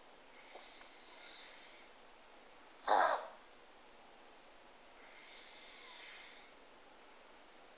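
Pug breathing noisily through its nose during a reverse-sneezing episode: two long hissy breaths with one short, loud snort between them, about three seconds in.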